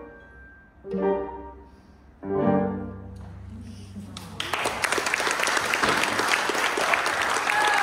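Closing chords of a piano quintet (piano with two violins, viola and cello): two short chords about a second apart, the second louder, each ringing out and fading. Audience applause starts about four and a half seconds in and is the loudest sound.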